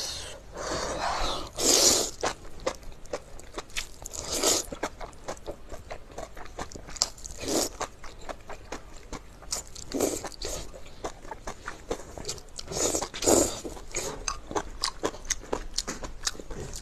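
A person eating close to the microphone: a quick run of chewing and mouth clicks, several a second, with louder bites or crunches every few seconds.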